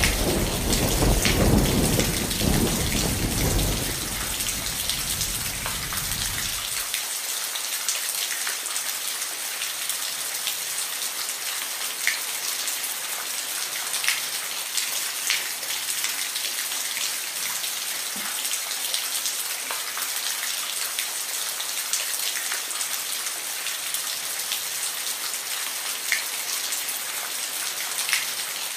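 Steady rain with scattered close drop spatters, under a roll of thunder that rumbles over the first seven seconds and then dies away.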